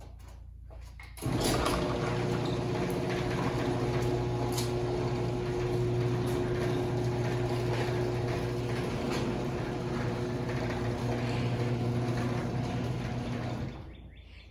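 Chamberlain C450 chain-drive garage door opener raising the door: a steady, very quiet motor hum with a low rumble that starts about a second in and stops shortly before the end.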